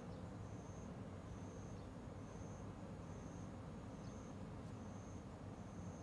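An insect chirping in a regular rhythm, a short high buzzing note about once a second, over a faint low steady rumble.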